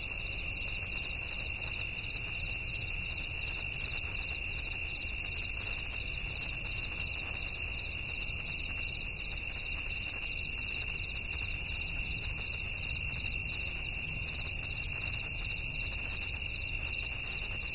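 Steady electronic hiss with a constant high whine and a fainter, higher tone that flickers on and off: broadcast dead air or line noise between two advertisements, with no music or voice.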